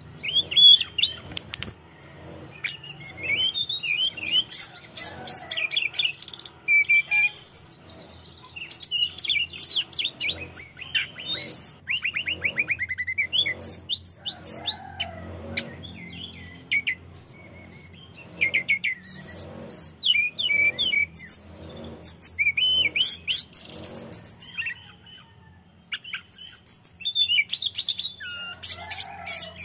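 Caged male tledekan gunung (hill blue flycatcher) singing hard: a fast, almost continuous string of high, clear whistled notes and quick trills, with a brief pause a few seconds before the end.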